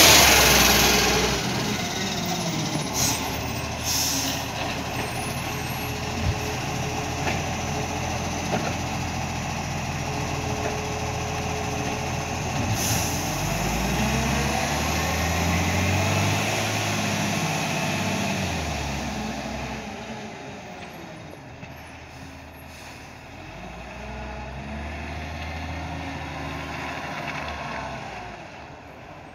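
Iveco ACCO garbage truck's diesel engine passing close, then pulling away and revving up and down through the gears as it goes. There are short hisses of air from the brakes a few seconds in and again about halfway. It grows fainter in the later part.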